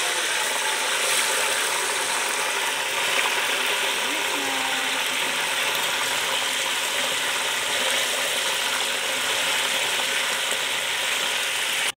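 Whole chicken deep-frying in hot oil in a large aluminium pot: a loud, steady sizzle with dense crackling.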